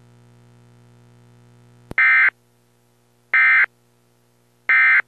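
Emergency Alert System end-of-message code: three short, buzzy bursts of digital data tones about a second and a half apart, signalling the end of the alert. A faint steady hum and a click come just before the first burst.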